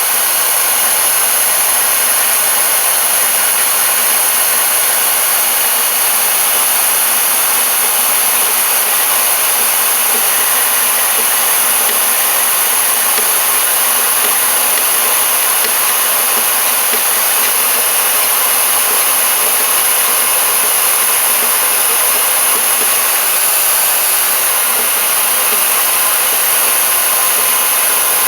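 Portable bandsaw running steadily while it cuts through a metal part, a continuous even whine and rasp of the blade.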